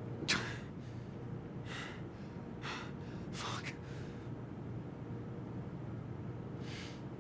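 A man gasping and breathing hard in short, sharp breaths, five of them spread over the few seconds, with a long pause before the last. Under them runs a steady low mechanical hum.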